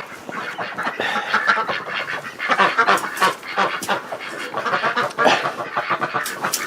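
A flock of domestic ducks quacking loudly, many short calls overlapping without a break.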